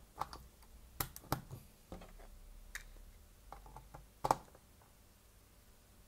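Sharp plastic clicks and knocks as a small USB wall charger is pushed into a power strip socket and a USB tester is plugged into its port. The loudest knock comes a little after four seconds.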